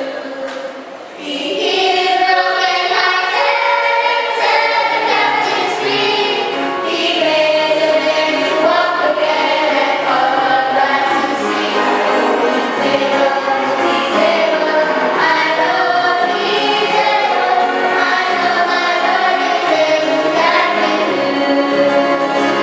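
Choir singing, the voices coming in fuller about a second in and carrying on steadily.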